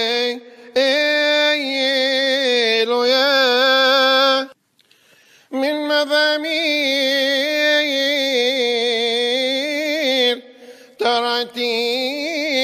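A solo male voice chanting a long, ornamented melisma in Coptic liturgical style, holding notes with wavering turns. It breaks for a breath about five seconds in and again near ten seconds.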